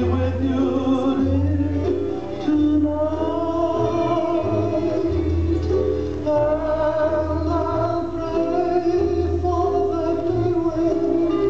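Hula music: a song with a sung melody over a pulsing bass line.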